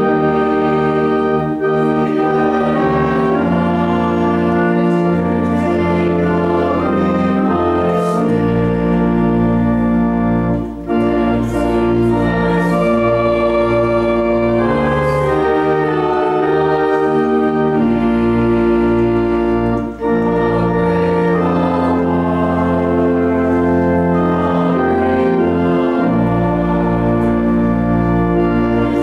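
Organ playing slow, sustained chords over held bass notes, the chords changing every second or two.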